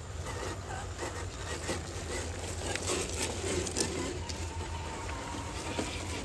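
Scale RC rock crawlers creeping over loose dirt and stones: scattered small clicks and crackles of tyres and rocks, over a steady low outdoor rumble. In the second half a faint steady whine from a small electric drive motor comes in.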